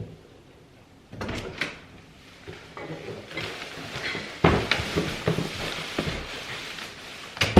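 Household handling noises: a series of knocks and bumps, like a door or cupboard shutting, with rustling in between; the sharpest knocks come about four and a half seconds in and near the end.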